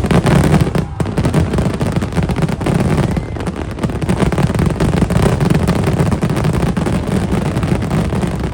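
Aerial fireworks going off in a dense, rapid barrage of bursts, one after another with no gaps.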